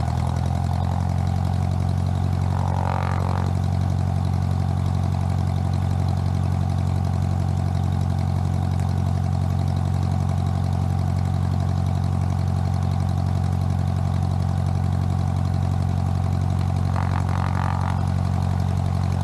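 Cessna 150's four-cylinder Continental O-200 engine running steadily at low power before the takeoff roll, with a shift in the engine note right at the start.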